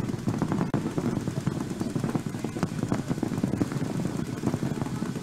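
Several paintball markers firing fast, overlapping streams of shots at the start of a point, a dense continuous rattle.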